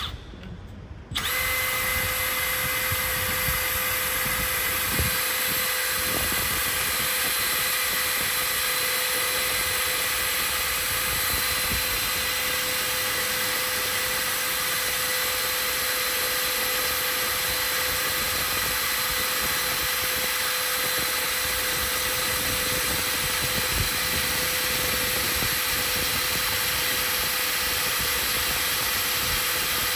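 Makita DHP486 18V brushless cordless hammer drill boring through a steel tube with a twist bit. It starts about a second in and runs at a steady speed, with a constant motor whine over the grinding of the bit in the metal.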